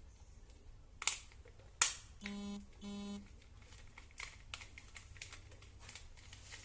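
Sharp clicks and light tapping from handling a wall socket's screws and parts, with two short buzzing beeps a little after two seconds in.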